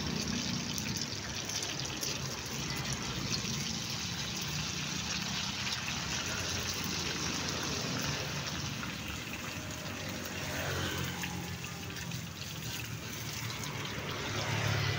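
Hot oil sizzling and bubbling steadily in a wok as beaten egg deep-fries around a bamboo skewer, with a low hum underneath.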